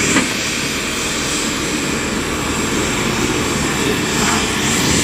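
Aircraft turbine engine running steadily: a continuous loud rush over a low rumble, with a thin high whine on top. A brief click sounds right at the start.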